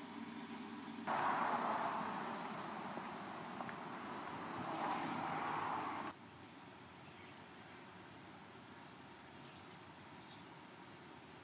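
A loud rushing noise starts suddenly about a second in, swells twice and cuts off abruptly. After it, faint insects trill steadily.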